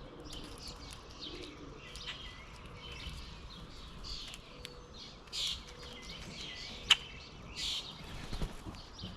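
Small songbirds chirping repeatedly with short, high calls at a feeder, with two brief rushing bursts and one sharp click about seven seconds in.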